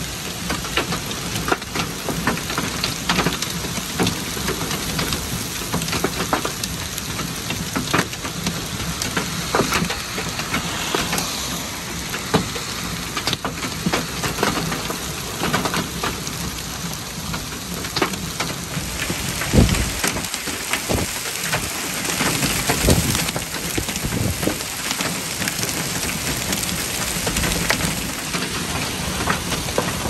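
Heavy, wind-driven rain and hail of a severe thunderstorm: a steady hiss of downpour on pavement, with many sharp clicks of hailstones striking. A few deep low thumps come about two-thirds of the way through.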